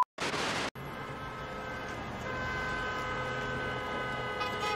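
A short burst of TV-style static, then car horns blaring steadily, a held honk that grows a little louder about two seconds in.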